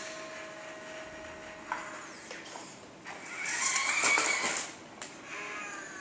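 Radio-controlled toy wheel loader's small electric motors and plastic gears whirring as it drives, loudest for about a second and a half from about three seconds in. A single click comes a little under two seconds in.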